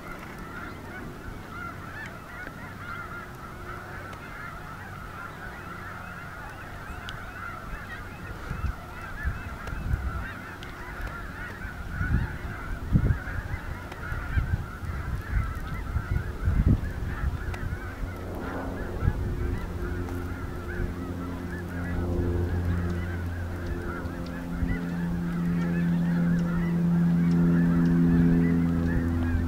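A large flock of geese honking in a continuous, overlapping chatter, with scattered low thumps through the middle. About two-thirds of the way in, a steady low hum with overtones comes up and grows louder.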